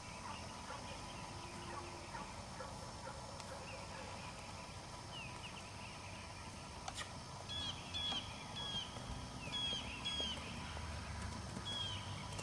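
Birds calling: a run of short, high, downward-hooked chirps, repeated and loudest in the second half, with a single sharp click about seven seconds in.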